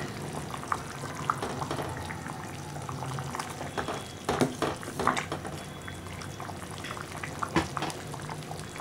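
Thick tamarind curry with turkey berries boiling in a pot, bubbles popping steadily, while a metal ladle stirs through it. There are a few sharper knocks of the ladle about halfway through and again near the end.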